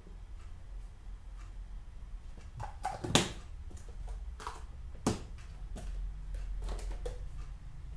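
Small objects being handled and set down on a table: a few light knocks and clicks, the loudest about three and five seconds in, over a steady low hum.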